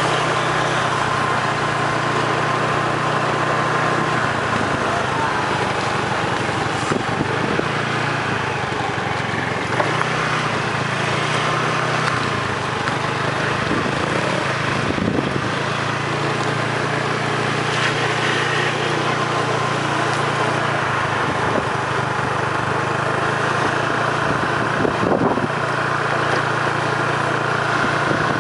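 An engine running steadily, its pitch shifting slightly now and then.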